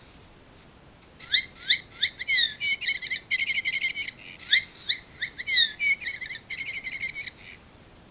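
A bird singing two similar song phrases of about three seconds each, starting about a second in. Each phrase opens with several falling whistled notes and ends in fast trills.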